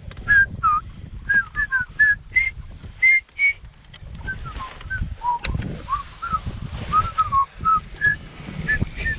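A person whistling a tune: short, clear notes stepping up and down, some sliding in pitch, about two or three a second. Wind rumbles on the microphone underneath.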